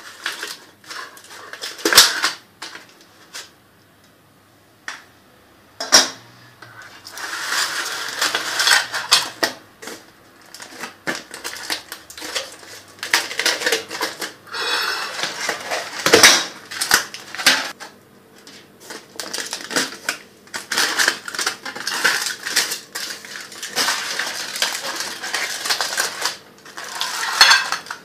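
Clicks and clatter of a metal springform cake pan being unlatched and handled, with a ceramic plate knocked on the counter and aluminium foil crinkling in irregular stretches.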